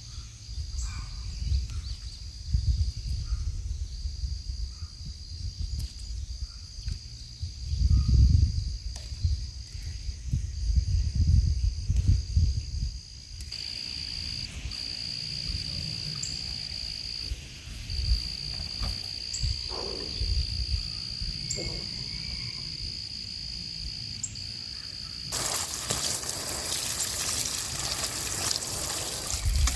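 Outdoor insect chorus: a steady high-pitched drone that breaks off briefly now and then, over low rumbles and thumps on the microphone. About 25 seconds in, a steady rush of running water starts.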